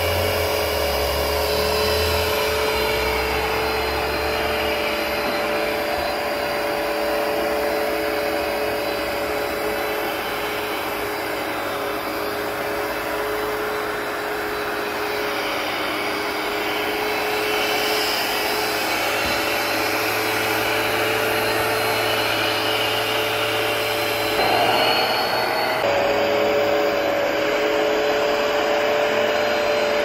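Hoover PowerDash Pet (FH50700) compact carpet cleaner running steadily as it is pushed over a rug: a continuous rush of suction under a steady motor whine, the whine rising briefly in pitch about 25 seconds in.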